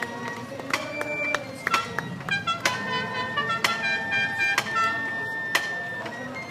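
Marching band percussion: a run of sharp strikes, several with a clear tone ringing on for about a second after it.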